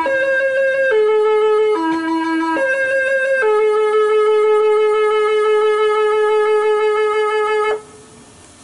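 Meitetsu 1200 series train's musical horn playing its full melody: four short notes stepping up and down, then one long held note of about four seconds that cuts off suddenly near the end.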